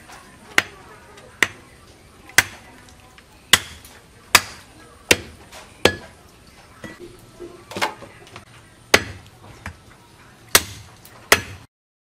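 Heavy cleaver chopping raw goat leg meat and bone on a wooden chopping block: about a dozen sharp chops, unevenly spaced at roughly one a second.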